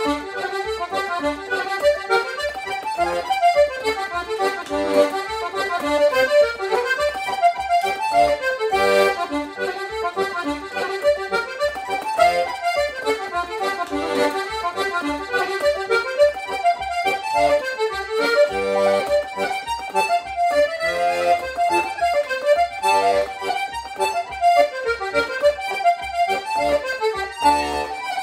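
Paolo Soprani button accordion playing a fast Irish reel: quick runs of melody notes over a steady pulse.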